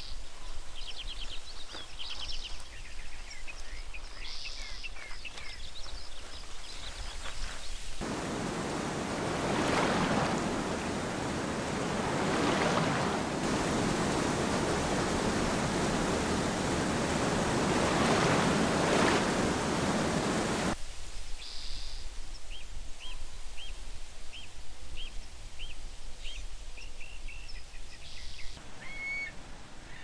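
Small birds chirping in quick repeated phrases. About eight seconds in, the steady rush of whitewater river rapids takes over for some thirteen seconds; it is the loudest sound. It then stops abruptly and birds call again.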